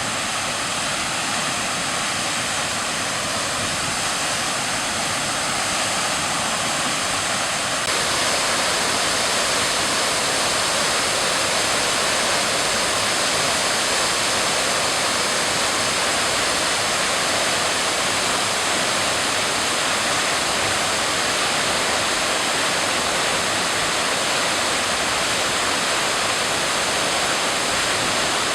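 Waterfall rushing: a steady, loud roar of falling water, a little louder from about eight seconds in.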